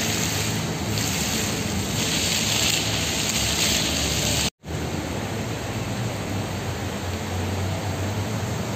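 Water from floor fountain jets splashing onto wet stone paving: a steady rushing hiss, brighter for a few seconds, that cuts off abruptly about four and a half seconds in and resumes as a similar steady rush.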